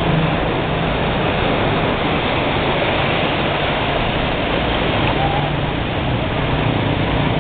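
Floodwater rushing and splashing steadily as vehicles plough through a flooded street, with a motorbike engine running low underneath, clearer near the end.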